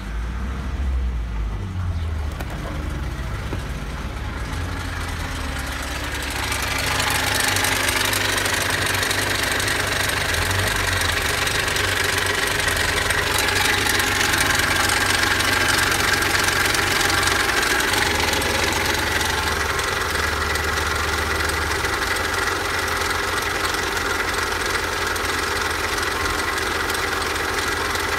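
Audi 2.8-litre ACK V6 petrol engine running at idle, with the engine speed wavering in the first few seconds. It is muffled at first, as heard from inside the cabin, then louder and brighter from about six seconds in, heard directly in the open engine bay, where it runs steadily.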